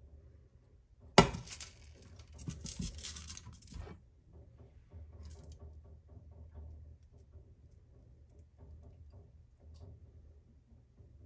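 Kitchen clatter: a sharp knock about a second in, then a few seconds of clinking and rattling of dishes or utensils with smaller knocks, dying down to faint occasional clicks over a low hum.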